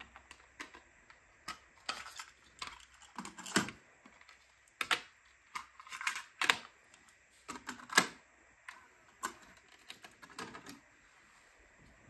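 TDK SA type II cassettes being loaded into Sony TC-K890ES and Pioneer CT-91a cassette decks: a dozen or so irregular plastic clicks and clacks of tapes and cassette doors being handled.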